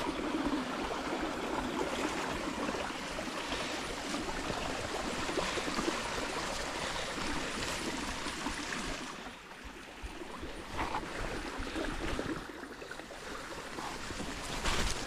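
Jungle creek flowing, a steady rush of running water that dips briefly about two-thirds of the way through.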